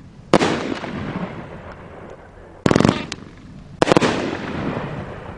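War Pony 500 g firework cake firing: three loud bangs, about a third of a second in, near three seconds and near four seconds, each fading away over a second or so.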